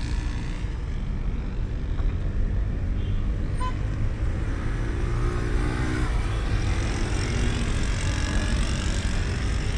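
Motor vehicle engines running with steady road traffic noise, a dense low rumble throughout.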